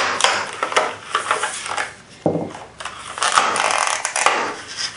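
Stiff clear plastic clamshell packaging crackling and clicking as it is pried apart and handled, with a heavier knock about two seconds in.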